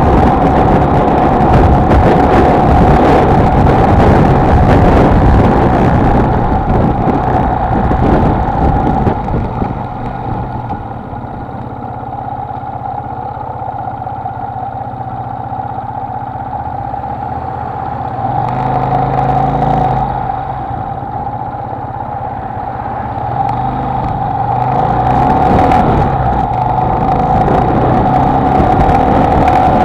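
Honda XLR125R motorcycle's 125 cc single-cylinder four-stroke engine running on the road. It goes quieter through the middle stretch and picks up again about three-quarters of the way in.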